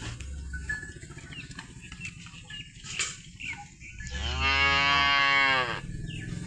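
A dairy animal (cow or buffalo kind) giving one long moo about four seconds in, lasting under two seconds and rising then falling slightly in pitch, over a steady low hum.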